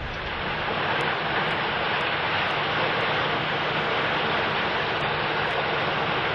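Steady, even rushing noise with no clear pitch, unchanging throughout, with faint high ticks about once a second.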